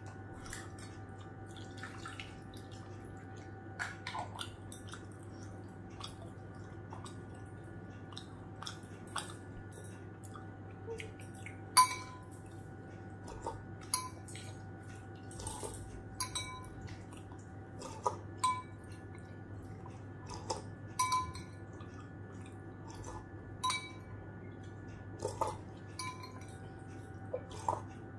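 Close-miked eating sounds of someone eating momos and soup: wet mouth clicks and smacks, scattered irregularly, with one sharper click about twelve seconds in. A steady low hum runs underneath.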